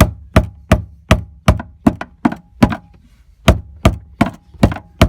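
Steady hammer blows, a little under three a second with one short pause midway, driving a screwdriver round the plastic fuel-pump locking ring to loosen it. Each blow is sharp, with a faint metallic ring.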